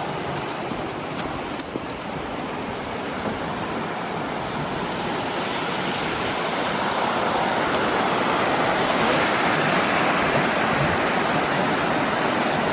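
Steady rush of falling and flowing water from a waterfall, growing gradually louder, with a couple of faint clicks near the start.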